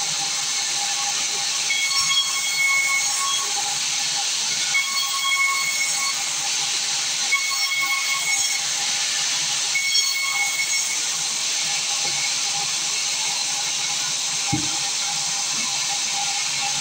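Sawmill saw cutting timber: a steady hiss, with a whine that comes in four times, about every two and a half seconds. A short low thump comes near the end.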